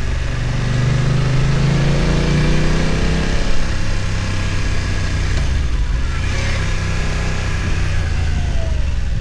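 BMW F900 XR's parallel-twin engine under way, revving up over the first few seconds and then easing back to a steadier, lower note, with a short drop in revs near the end.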